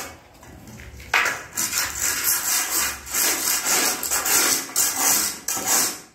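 A screed rule scraped back and forth over damp cement-sand mortar, levelling a subfloor screed. It is a rasping scrape in quick repeated strokes, about two a second, starting about a second in.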